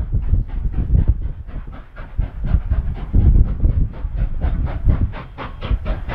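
Steam locomotive working along the line: a fast, even beat of exhaust chuffs, about six or seven a second, with heavier low thumps underneath.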